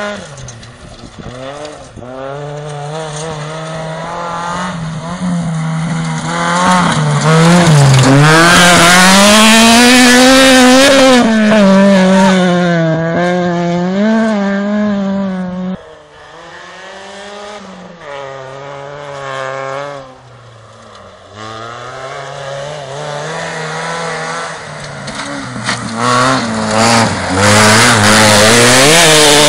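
Rally car engines revving hard on a gravel stage, pitch climbing and falling with each gear change and lift as the cars accelerate and pass close, with tyres scrabbling on the loose surface. The sound is loudest from about a quarter to half way in, drops sharply, then builds again to a loud pass near the end.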